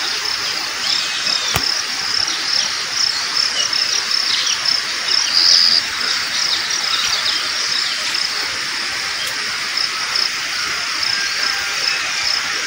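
Insects chirring steadily in a high band that swells now and then, with scattered bird chirps over it. One sharp click about a second and a half in.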